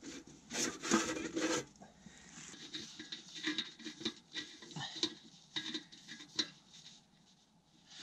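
Light rubbing and scraping with scattered small knocks as a metal stovepipe is worked onto a small stainless steel tent stove, busiest in the first second and a half.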